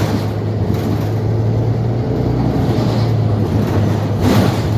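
Cabin sound of a 2021 New Flyer XDE40 Xcelsior diesel-electric hybrid city bus running: a steady low hum over road and drivetrain noise.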